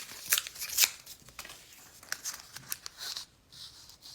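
Toy blind-bag packet being crinkled and torn open by hand: a quick run of sharp crackles and snaps, loudest in the first second, then sparser rustling.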